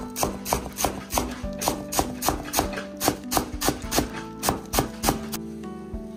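A cleaver chopping Chinese chives on a wooden cutting board in quick, even strokes, about four a second, stopping about a second before the end. Background music plays underneath.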